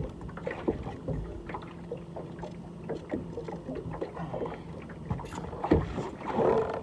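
Scattered light knocks and clatter in a small fishing boat on the water, with a heavier knock near the end.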